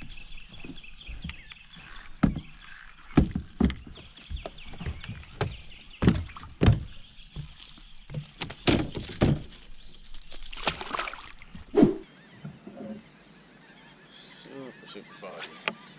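A hooked mullet splashing and flapping at the water's surface beside a kayak, a rapid irregular run of splashes for about twelve seconds. After that it goes quieter, with a few faint animal calls near the end.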